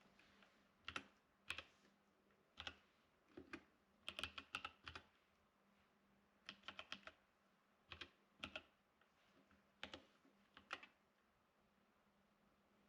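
Faint typing on a computer keyboard: scattered keystrokes in short irregular bursts, dying out about two seconds before the end.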